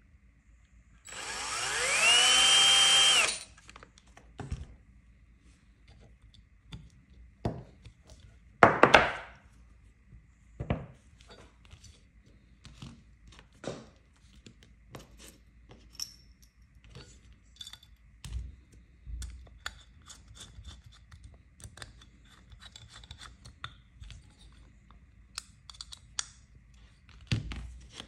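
A cordless drill-driver spins up with a rising whine, then holds a steady speed for about two seconds before stopping. A short scraping burst follows, then scattered clicks and knocks of small metal parts being handled and set down.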